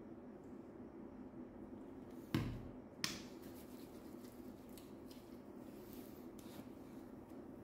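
Two sharp knocks a little under a second apart, the first with a dull thud, as a plastic bottle is handled and set down, over a faint steady room hum. Then faint rubbing of hands spreading the liquid.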